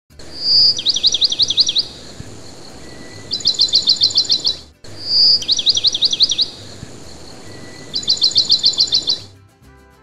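Bird song: a short high whistle followed by two fast trills of sweeping chirps, and the same phrase heard again, identically, over faint background music. Near the end the birds stop and soft music carries on.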